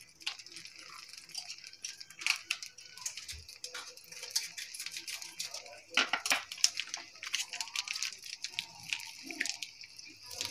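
Onion slices simmering in oil and water in a wok: a steady crackling and popping of bubbles.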